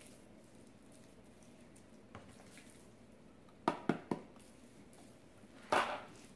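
Spice containers being shaken and handled over a raw beef roast: three quick, sharp clicks a little under four seconds in, then a short, louder scuff near the end.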